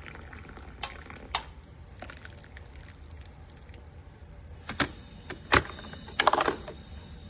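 Water in a Hamilton Beach glass electric kettle, with a steady low rumble and several sharp clicks: two early, two more around five seconds in, and a quick cluster near the end.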